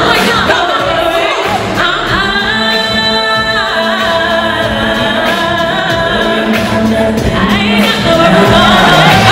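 Female hip hop trio singing live into handheld microphones, with music behind them; a held note in the middle of the passage slides down in pitch.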